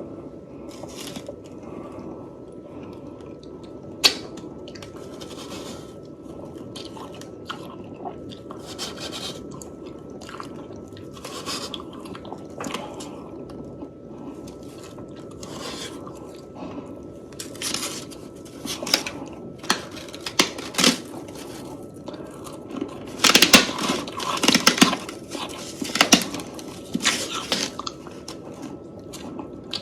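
Close-miked chewing of soft freezer frost: a string of crisp, crunchy bites, thickest and loudest about three-quarters of the way through. A single sharp click sounds about four seconds in.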